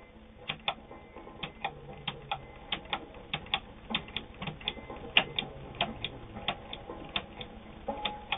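Pattern selector of a Morse Fotomatic IV zigzag sewing machine being turned through its built-in stitch settings: a run of sharp, uneven clicks at about three a second as it moves from detent to detent.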